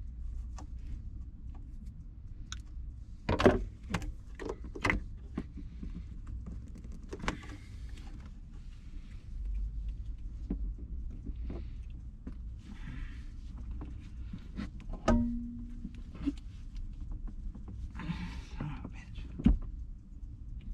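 Scattered sharp knocks and clicks of tools and parts being handled, the loudest about three seconds in, near the middle and near the end, with a few short scraping or rustling noises in between, over a steady low hum.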